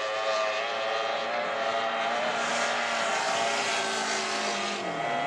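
High-revving racing outboard motor running flat out with a steady high-pitched note, its pitch dropping about five seconds in as the revs come off.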